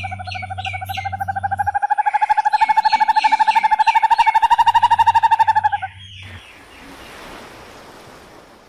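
An animal's call: a loud, fast, even trill on one steady pitch with quick falling chirps over it, stopping about six seconds in. A fainter hiss follows.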